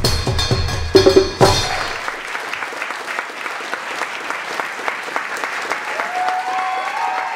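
Drum-led percussion music ends with a few heavy strikes about a second in, then an audience breaks into steady applause.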